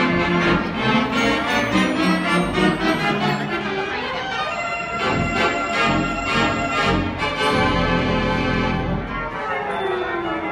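Robert Morton theater pipe organ playing, held chords of many stops sounding together and changing every second or so.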